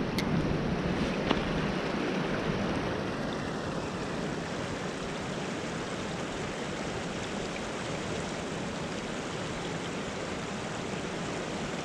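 Creek water rushing steadily, with two light clicks in the first second and a half.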